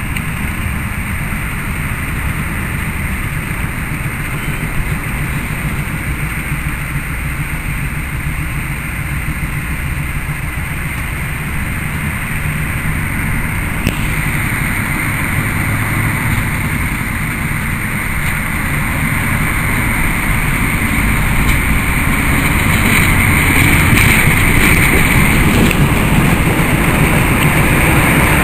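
Diesel engine of an SM30 diesel-electric shunting locomotive running steadily as the locomotive moves with its tank wagons, growing louder as it draws near.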